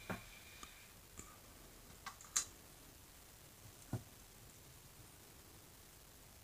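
Light clicks and taps of small plastic miniature furniture pieces being picked up and set down on a tiered display tray. There are a few separate clicks, the sharpest about two and a half seconds in and another about four seconds in.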